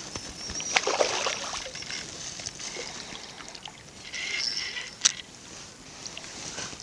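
A hooked carp splashing lightly in shallow water as it is reeled in to the bank, with sharp clicks about a second in and again about five seconds in.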